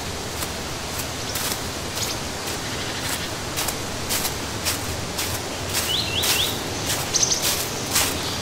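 Outdoor ambience with a steady hiss and frequent light crackling, and a bird giving three quick rising chirps about six seconds in, followed by a few short high notes.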